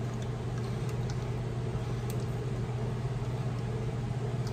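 Steady low mechanical hum of constant background noise, with a few faint light ticks.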